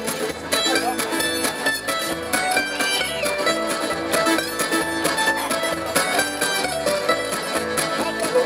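Instrumental passage of a folk sea shanty: guitar and other plucked strings over a steady bass beat, with no singing.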